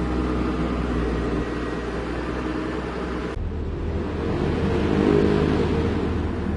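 Diesel engine of a heavy truck or construction machine running steadily. The sound changes abruptly about three and a half seconds in, then grows a little louder around five seconds in.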